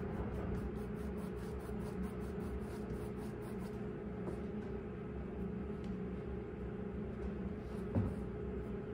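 Steady low background hum of a small room, with a faint knock about eight seconds in.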